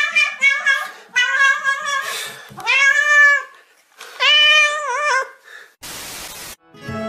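Domestic cat meowing loudly over and over, in long drawn-out calls that rise and fall in pitch, the last one wavering. Near the end comes a short burst of static hiss.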